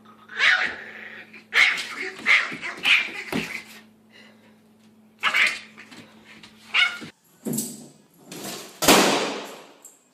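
A dog barking in short, repeated barks, with a louder rushing noise near the end.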